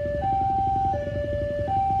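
A two-tone electronic warning alarm alternates steadily between a lower and a higher tone, about three-quarters of a second each, over a constant low rumble.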